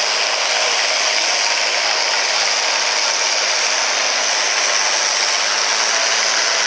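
An altered farm pulling tractor's diesel engine running flat out under heavy load as it drags the weight-transfer sled: a loud, steady, harsh roar.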